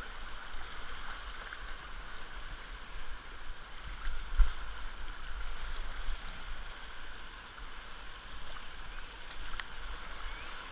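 Fast whitewater rapids on a river in high water rushing steadily around a kayak, with paddle strokes and water splashing over the bow, under a low rumble. A single loud thump comes about four seconds in.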